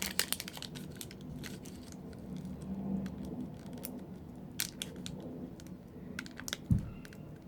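Blind-box packaging being handled and opened by hand: scattered clicks and light crinkling, with a single low thump near the end.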